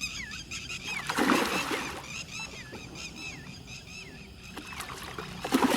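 A bird calling over and over, a short falling high note about twice a second. Two short bursts of noise break in, about a second in and again near the end.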